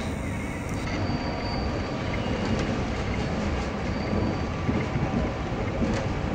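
A passenger train coach heard from inside while running: a steady rumble of wheels on the rails, with a few faint clicks from the track.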